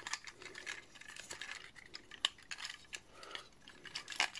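Small irregular clicks and scrapes of a metal watch-band pin remover being worked against a plastic toy figure to push out a metal pin, with a sharper click about two seconds in and another near the end.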